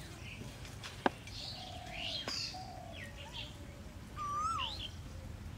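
Birds calling: scattered short chirps, and near the end a louder looping call that rises and falls. Two sharp clicks cut in, the louder one about a second in.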